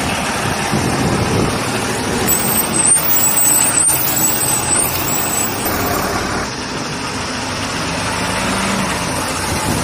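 Heavy goods trucks running as a convoy moves off, a steady engine and road noise. A thin, high squeal comes and goes for a second or two starting about two seconds in.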